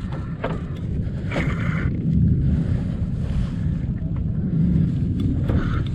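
Wind buffeting the microphone as a steady low rumble, with sea water lapping against a kayak hull and a few brief splashes or knocks.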